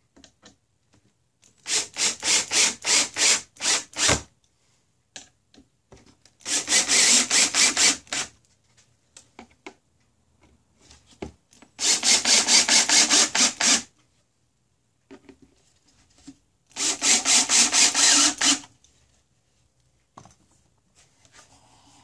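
Cordless drill driving screws into the wooden birdhouse in four bursts of about two seconds each, every burst pulsing about three or four times a second.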